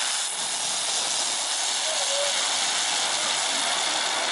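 Ground firework burning on the ground and spraying sparks, a loud, steady hiss.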